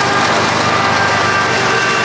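Train passing close by: a loud, steady rumble and rush, with thin high steel wheel squeals held over it.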